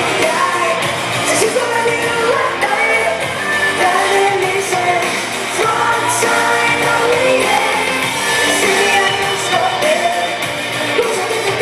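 Pop-rock music with a singing voice.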